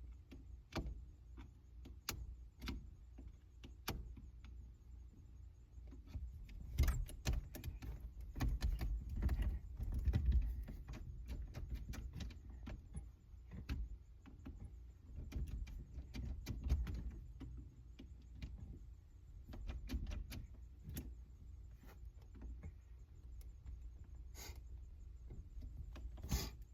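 Scattered metal clicks, taps and knocks with a low handling rumble as a screwdriver works at a stubborn old ignition switch in a car's steering column.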